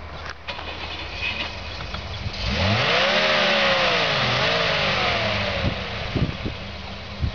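Volvo C304 (TGB-13) 6x6's inline-six petrol engine revving up under load about two and a half seconds in, easing off, revving again and falling back, with a loud rushing noise while it pulls.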